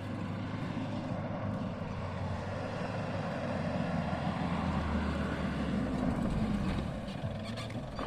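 A vehicle engine running steadily, a low hum under a rushing noise.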